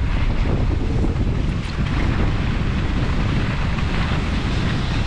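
Wind rushing over the microphone of a camera carried by a skier gliding down a groomed run. It makes a loud, steady low rumble, with the hiss of skis sliding over snow.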